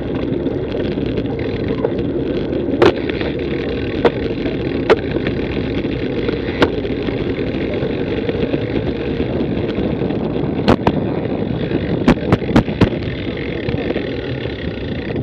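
A road bicycle rolling over a plank-decked footbridge and onto pavement, heard through a handlebar-mounted action camera: a steady low rumble of tyres and wind. Sharp clicks break in every second or two, with four in quick succession near the end.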